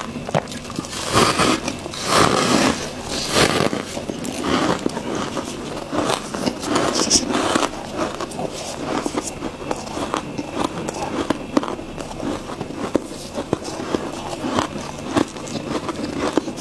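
Freezer frost being bitten and chewed, many crisp crunches in quick succession, over a faint steady low hum.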